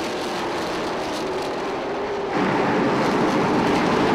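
Pavement late model race cars' V8 engines running at speed as the pack laps the track, a steady engine drone. The sound jumps suddenly louder about two and a half seconds in.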